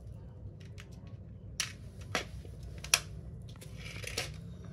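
Small sharp clicks and taps of hand-handled carburettor parts and a clear plastic parts box on a concrete floor, three distinct clicks through the middle, then a brief scratchy rustle of the box near the end.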